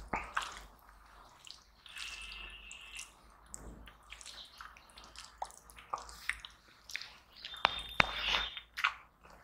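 Bare fingers working turmeric rice on a steel plate: scattered soft wet squishes and small clicks. Near the end a handful goes to the mouth with light mouth and eating sounds.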